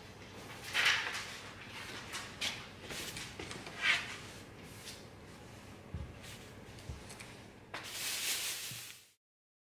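Kitchen handling sounds: a plastic produce bag rustling while a plastic cutting board and a metal sheet pan are lifted and set down on the counter. There are a few short scrapes, two soft knocks about six and seven seconds in, and a longer rustle near the end before the sound stops abruptly.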